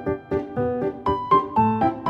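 Background music: a light tune of short, evenly spaced struck notes, about four a second.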